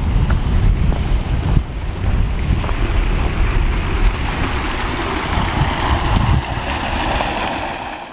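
Wind buffeting a handheld camera's microphone with a gusting low rumble. Toward the end a steady hiss of running water from a small cascade grows louder.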